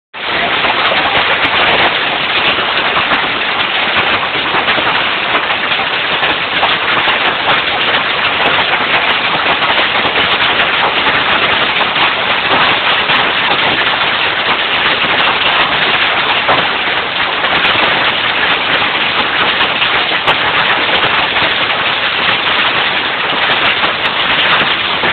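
Heavy hail pelting down, a dense, steady clatter of countless small impacts.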